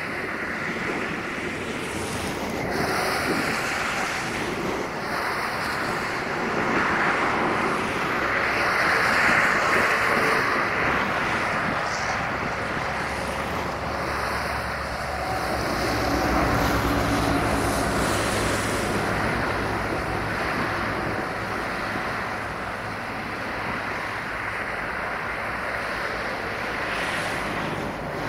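Distant jet noise from a Boeing 737-800's CFM56 engines as the airliner moves along the runway, mixed with wind on the microphone. It is a steady rush that swells twice, with a low hum joining about halfway through.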